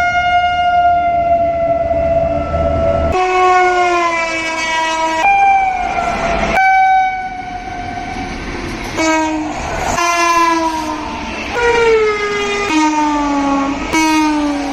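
Indian Railways locomotive horns, loud blasts one after another, about eight or nine in all. Each blast breaks off abruptly into the next, and several slide slightly down in pitch.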